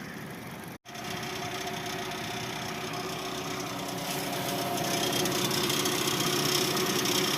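2019 Kia Sportage engine running with a fast, steady knocking: the engine knock the owner is showing. The sound drops out briefly about a second in and grows slightly louder after the middle.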